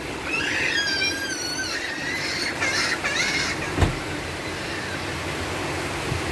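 Heavy storm rain and wind making a steady rushing noise. For the first few seconds high wavering whistle-like tones sound over it, and there is a single sharp knock just before the middle.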